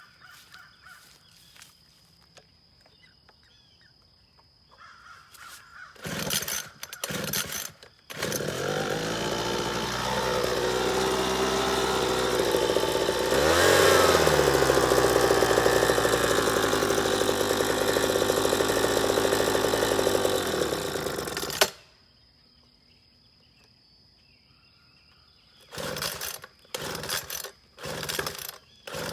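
Gas leaf blower's small engine: a few short pull-start bursts, then it catches and runs steadily, revs up about halfway through, and cuts off suddenly. Near the end come a few more short bursts as it is pulled again.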